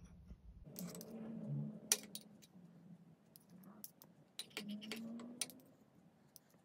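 Metal spoons clinking and scraping against glass as ice cream is scooped from a glass bowl and pushed off into a tall glass: a handful of light, sharp clinks spread over the few seconds.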